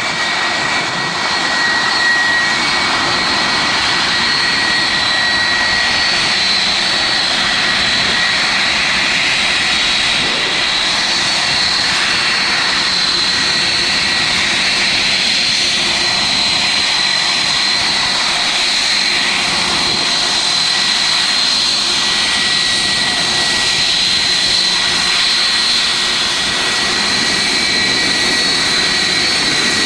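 Boeing 757-200's twin turbofan engines running steadily as the airliner taxis close by: a broad jet rush with two high, held whining tones.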